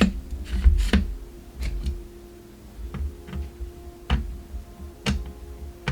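Metal tripod leg-latch parts clicking and tapping as they are handled and tried, a sharp click about once a second. The latch offers no resistance: its home-made nylon insert is too thin to grip.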